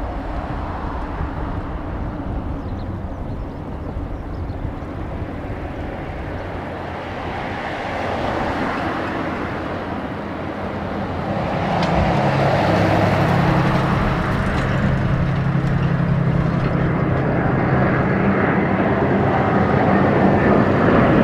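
Boeing 787 jet airliner on final approach with its landing gear down, the whine and rumble of its twin turbofans growing louder as it comes in low, with a steady drone setting in about halfway through. Wind rumbles on the microphone underneath.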